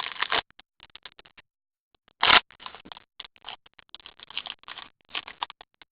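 Trading cards from a freshly opened pack being handled and slid against each other: a run of short, irregular scrapes and rustles, with one louder scrape about two seconds in.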